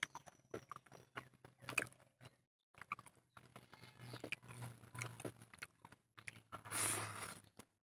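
Close-miked eating sounds: fingers squishing and mixing curried rice and chicken on a plate, with wet chewing and mouth clicks. There is a louder, noisier stretch about seven seconds in.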